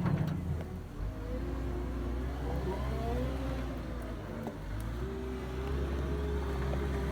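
Cat 906H2 compact wheel loader's diesel engine running under work, its pitch rising and falling, dipping about four seconds in and picking up again a second later.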